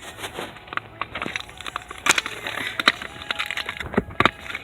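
Fidget spinner packaging being handled and opened by hand: irregular crinkling and sharp clicks, with louder snaps about two seconds in and again near the end.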